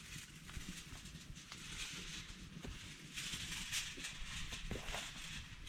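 Sheet of aluminum foil crinkling and rustling as it is handled and wrapped around sticks, with scattered small clicks; the crinkling grows loudest about three seconds in.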